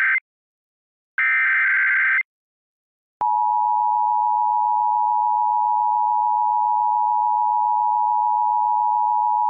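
Emergency Alert System SAME header data bursts, harsh buzzing digital tones: one burst ends just after the start and a second lasts about a second. About three seconds in, the long, steady EAS attention tone begins, which signals that the spoken warning is about to follow.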